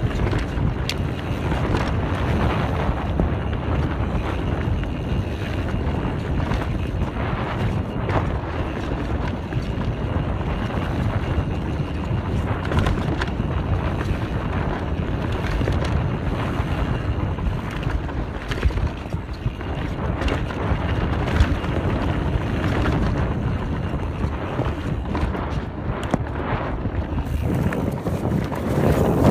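Wind rushing over a chest-mounted phone microphone during a fast mountain-bike descent, with tyres rolling over a dirt trail and scattered short knocks and rattles from the Canyon Spectral enduro bike. The noise brightens near the end.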